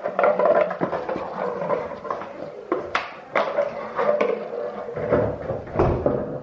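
Empty plastic bottle crinkling and clattering on a tile floor as a bulldog puppy bats it and mouths it, with irregular sharp knocks and clicks. There is a low thud about five seconds in.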